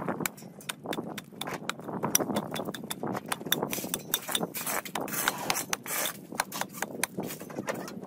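Rustling and crackling of a vine and dry weed stems being pulled and snapped by hand from a brick wall, with many small sharp clicks and knocks throughout.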